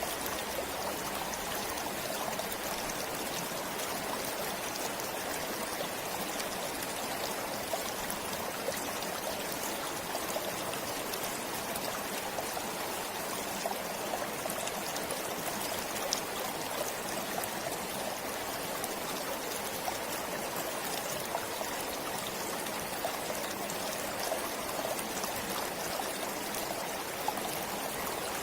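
A stream flowing steadily over stones, with a continuous rushing and many small splashes and trickles.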